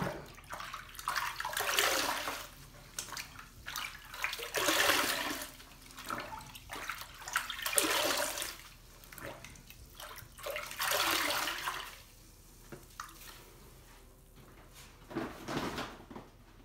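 Large sponge squeezed and wrung in a sink full of water, water streaming and splashing out of it: four long squeezes about three seconds apart, then two shorter squishes near the end.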